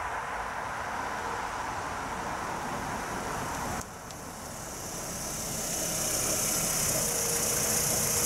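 First-generation Ford Mondeo running on the road: it drives up, and after an abrupt change about four seconds in, its engine idles close by, growing louder.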